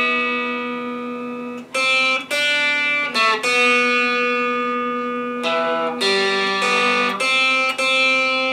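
Squier Stratocaster electric guitar played slowly: single notes and short phrases ringing out with long sustain, changing every second or two.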